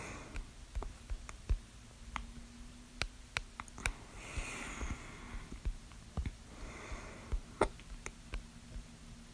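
A person's hiccups: short, sharp clicks coming quickly at uneven intervals, with two longer breaths near the middle.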